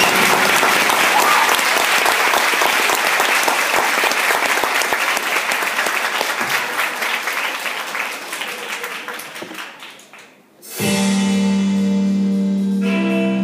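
Audience applause dying away over about ten seconds, then music with sustained notes starting suddenly about eleven seconds in.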